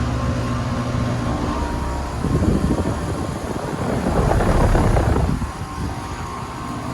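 Outdoor air-conditioner condensing unit with a Copeland scroll compressor running steadily, a hum with a low tone in it. About two seconds in, a louder rushing noise lasts roughly three seconds, then the quieter running hum returns.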